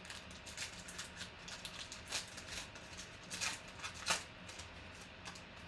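Foil wrapper of a trading-card pack crinkling and tearing as it is pulled open by hand, in irregular crackles, the louder ones in the middle of the stretch.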